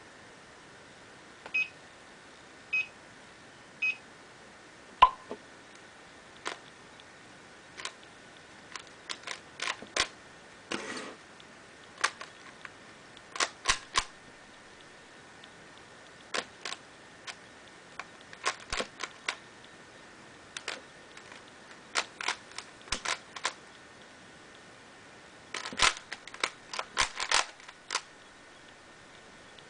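Three short electronic beeps, about a second apart, then irregular sharp clicks and clacks in clusters as the layers of a plastic 3x3 puzzle cube are turned during a speed solve.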